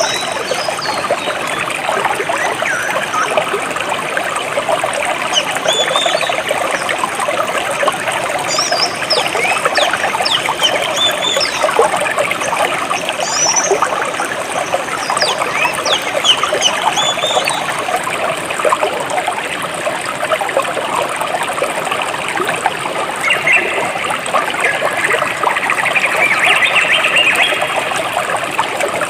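A jungle stream trickling and splashing steadily, with birds chirping now and then above the water.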